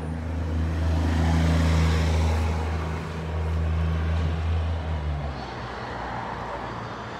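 Road vehicle's engine droning as it passes by, loudest in the first few seconds and dying away about five seconds in, leaving faint traffic noise.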